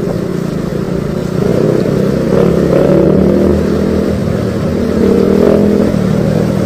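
Motorcycle engine running under way, its pitch rising and falling with the throttle, through an open aftermarket exhaust that sounds crisp. Heard from a helmet-mounted camera mic, with some wind rumble underneath.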